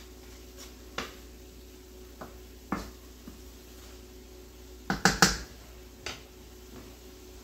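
Light clicks and knocks of a seasoning container and spoon being handled beside the stove: a few single clicks about a second apart, then a quick cluster of louder knocks about five seconds in. A faint steady hum runs underneath.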